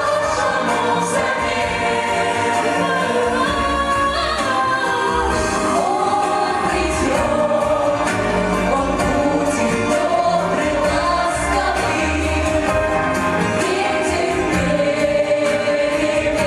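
A pop song sung by a group of voices together over a backing track with a bass line and a steady beat.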